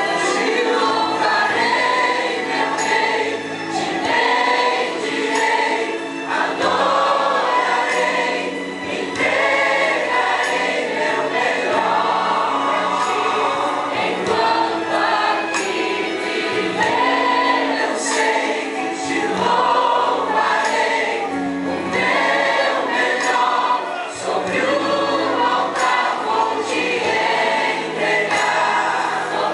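A mixed choir of young men and women singing a Portuguese hymn together in continuous phrases.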